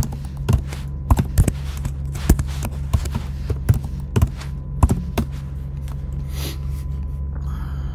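Computer keyboard keystrokes: irregular clicks as a password is typed, stopping about five seconds in, over a steady low hum.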